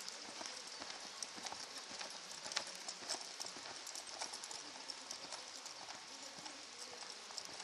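Hoofbeats of a two-year-old reining horse being ridden over arena sand: a run of irregular short clicks and thuds over a steady hiss.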